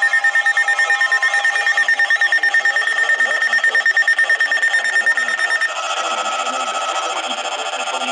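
Several NOAA weather radio receivers sounding their alert alarms at once: rapid, loud pulsing beeps. About six seconds in, the beeping changes to a different, lower set of pulsing tones.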